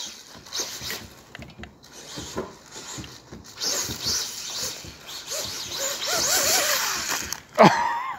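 Electric whine of an RC buggy's 2430-size 8200kv brushless motor on a 3S lipo, surging and dropping with the throttle as the buggy tears across grass. Short rising and falling whines come about six seconds in, and a sharp, loud whine drops in pitch near the end.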